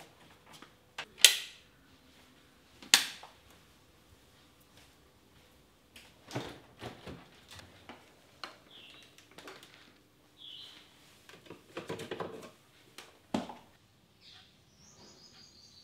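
Household handling sounds: two sharp knocks in the first three seconds as the front door is shut and latched, then scattered clinks and clatter of kitchen things such as fridge containers and dishes.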